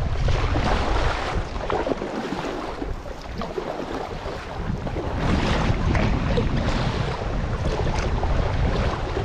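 Wind buffeting the microphone as a low rumble that eases for a couple of seconds and comes back, over choppy lake water lapping and splashing close by.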